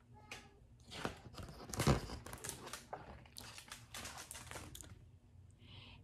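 Pages of a large picture book being handled and turned: a run of papery crinkles and rustles, loudest about two seconds in.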